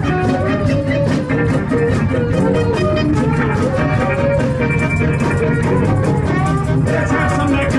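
Live band with a horn section playing: saxophones carry a melodic line over drums, bass and electric guitar, with a steady beat.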